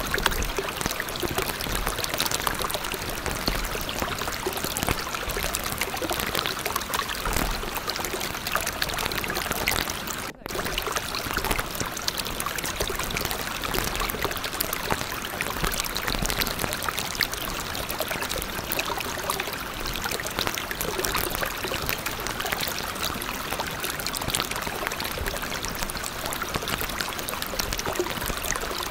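Steady rush of running water, like a stream. It cuts out for a moment about ten seconds in.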